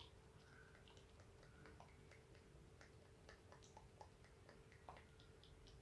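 Near silence: room tone with a faint steady hum and scattered faint small ticks and clicks.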